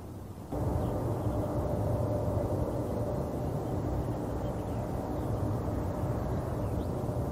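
Airbus A380 jet engines running: a steady, heavy rumble with a low droning hum, starting abruptly about half a second in.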